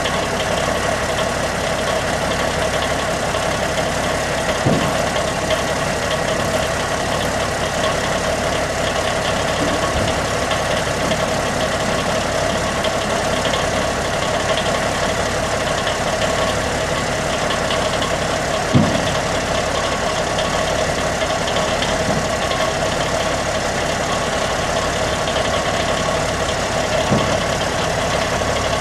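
Cummins six-cylinder turbo diesel of a 1984 Kenworth dump truck idling steadily. A few brief knocks come through it, the loudest about two-thirds of the way in.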